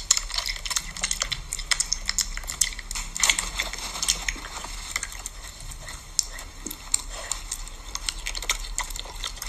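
Piglet chewing and smacking its mouth at a hand: a quick, irregular run of small wet clicks.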